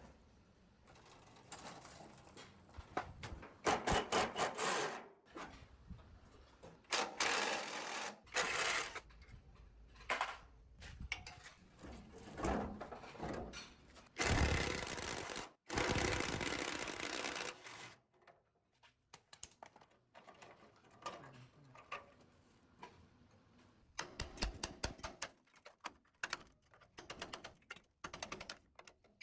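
Hand tools working on metal machine parts: runs of rapid clicking and knocking, broken by several bursts of scraping noise lasting a few seconds each.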